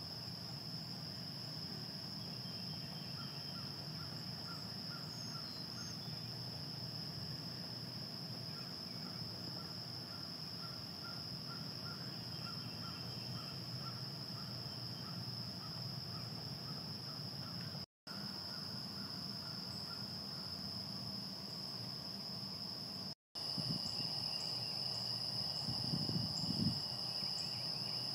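A steady high-pitched insect chorus, like crickets, in a marsh, with a repeated call of about two short notes a second running through the first half. The sound drops out briefly twice, and near the end a low rumble of wind is heard over the chorus.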